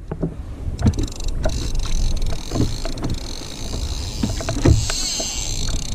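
A kayak moving across calm sea, with water lapping and splashing against the hull, scattered short knocks and an uneven low rumble. A steady hiss joins in high up after about a second and a half.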